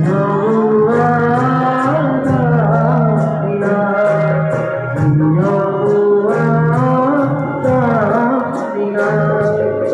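Live band music on a stage: a man sings a melody into a microphone, amplified over keyboard, electric guitar and drum, with a steady beat.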